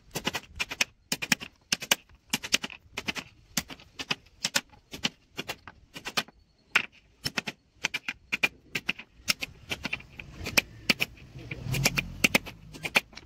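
A run of sharp knocks and taps from carpentry work, about two or three a second and often in close pairs, irregular in spacing.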